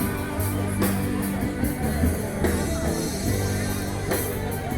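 Live rock band playing, with electric guitar over a steady bass line and occasional drum or cymbal hits.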